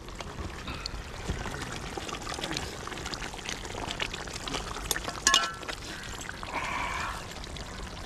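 Thick chicken curry bubbling and simmering in a large metal pot as a ladle stirs through it, with a sharper metallic clink of the ladle against the pot about five seconds in.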